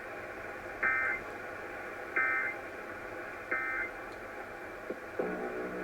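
Emergency Alert System end-of-message code (the EOM data bursts) played over a radio broadcast: three short, identical digital data bursts about a second apart, marking the end of the EAS test.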